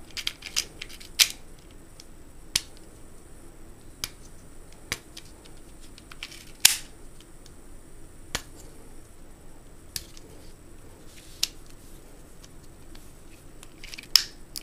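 Sharp, irregular clicks and taps from a Smith & Wesson M&P15-22 magazine being handled as a .22 rimfire round is worked out of it, about a dozen in all. The loudest comes about halfway through, with another strong one about a second in.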